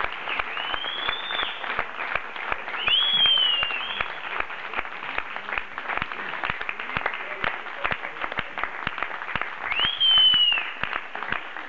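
Audience applauding with dense, steady hand claps. Three high, shrill calls, each rising then falling and about a second long, ring out over the clapping: near the start, about three seconds in, and near the end.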